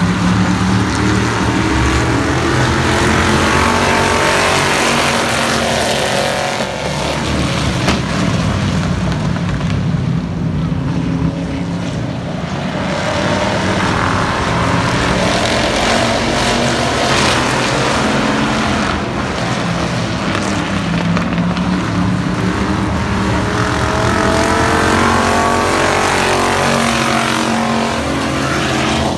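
Race cars' engines running laps on a short oval. The loud running sound swells and fades, pitch rising and falling as cars pass, with a pass near the start and another near the end.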